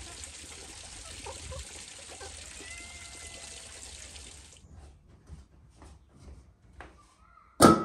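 Steady running-water noise that cuts off abruptly about halfway through. Then a few small clicks and one loud clank with a short ring near the end.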